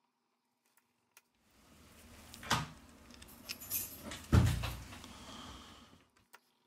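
Smartphone parts and tools being handled on a repair bench during reassembly: rustling and clinking with two sharp knocks, the second louder and deeper.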